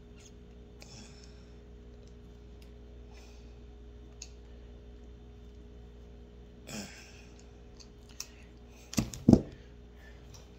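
Small scattered clicks of metal pliers squeezing split-shot sinkers onto fishing line, faint over a steady low hum, then two loud knocks about nine seconds in.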